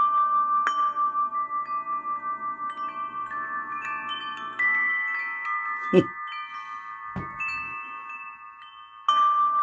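Recorded wind chimes playing through the Greadio R-10 portable radio's speaker: its built-in relaxation track number 8. Many overlapping ringing tones slowly fade, then swell again sharply near the end. Two short knocks about six and seven seconds in.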